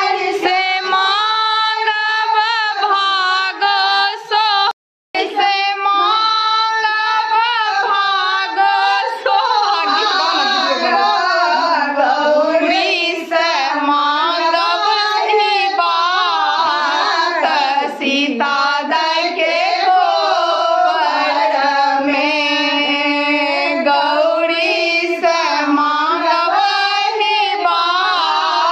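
A group of women singing a folk song together in chorus, with a brief break in the sound about five seconds in.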